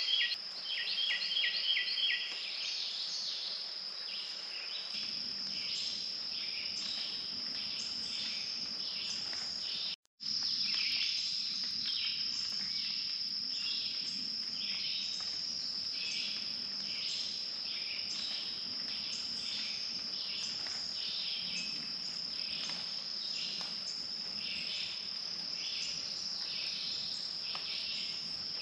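Steady high-pitched insect drone with birds chirping and singing over it in woodland. The sound cuts out for a moment about ten seconds in.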